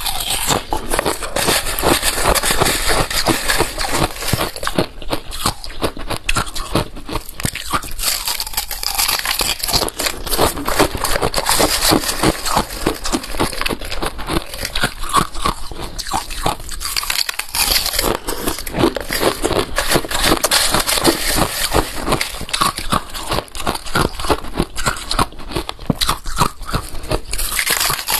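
Balloon ice being bitten and chewed: dense, rapid crackling crunches as chunks of ice are crushed between the teeth, with a brief pause about two-thirds of the way through.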